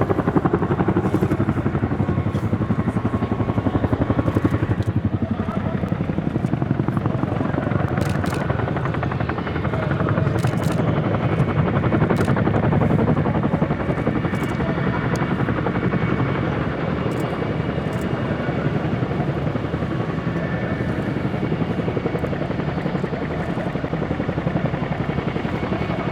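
Boeing CH-47J Chinook tandem-rotor helicopter flying, its two rotors making a steady, rapid beating that swells and eases a little as it moves.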